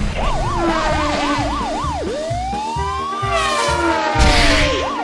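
A siren sound effect with a fast up-and-down wail, about three sweeps a second. About two seconds in it switches to one slow rise and fall, and the fast sweep comes back at the end. It plays over background music with a steady beat, and a hissing rush comes about four seconds in.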